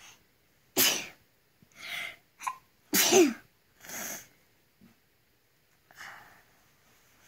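A boy sneezing twice, hard, about two seconds apart, with breathing in between and after. The second sneeze is the loudest, with a falling voiced 'choo'. These are fatigue sneezes on waking: he sneezes whenever he is tired.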